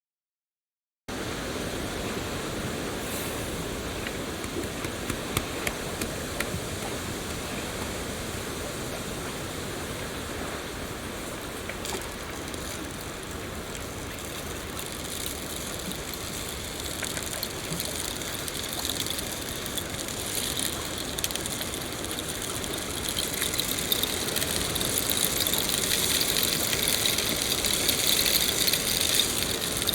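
Steady rain, an even hiss with scattered fine drop ticks. It starts abruptly about a second in and grows louder and brighter over the last several seconds.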